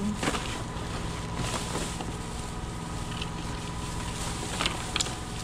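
Plastic trash bags rustling and crackling in short bursts as gloved hands lift and shift them, over a steady machine hum. The sharpest crackles come just after the start and twice close together near the end.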